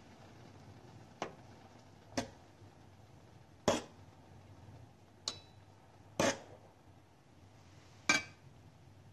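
Utensil knocking against a stainless-steel cooking pot: six separate sharp clinks at uneven gaps of about one to two seconds, a couple with a brief metallic ring.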